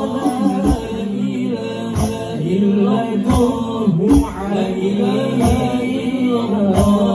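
Banjari sholawat performance: male voices singing a devotional Arabic melody into microphones, accompanied by terbang (rebana) frame drums struck about once a second.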